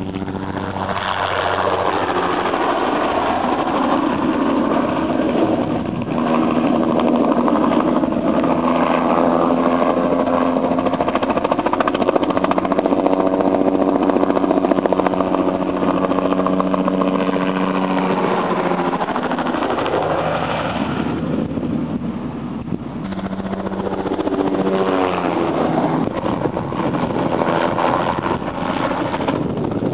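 Bell 206 JetRanger turbine helicopter flying low overhead on crop-spraying passes, its rotor beat loud and steady, then dropping in pitch as it goes past. It fades briefly and then comes back loud again near the end as it makes another pass.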